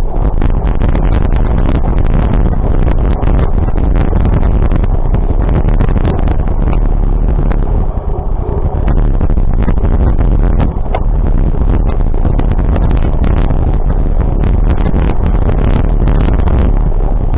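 A vehicle running on the road: a loud, steady rumble with many short crackles over it.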